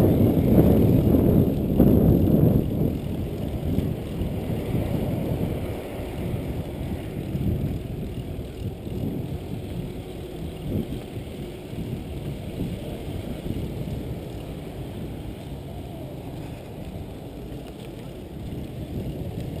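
Wind buffeting the camera microphone over the rumble of mountain bike tyres rolling on a concrete path, louder in the first few seconds, then settling to a lower steady rumble.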